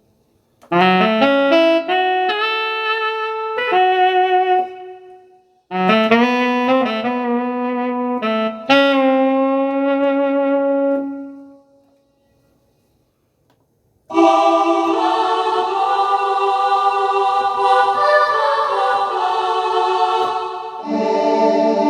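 Korg M1 synthesizer presets being played: two short phrases of melody notes on one program, a pause of about two seconds, then sustained chords on a fuller program, with a chord change near the end.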